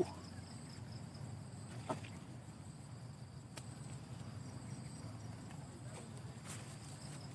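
Steady high insect trilling, like crickets, over a low outdoor rumble, with a few soft clicks about two, three and a half, and six and a half seconds in.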